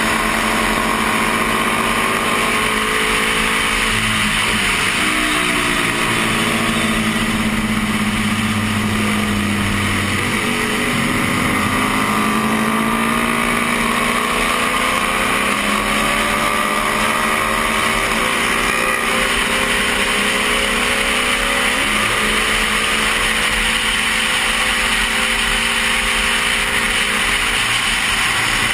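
1972 Honda CB350 air-cooled parallel-twin racing engine under hard throttle, heard from the rider's helmet camera. Its pitch climbs and drops several times with gear changes and corners, under heavy wind rush on the microphone.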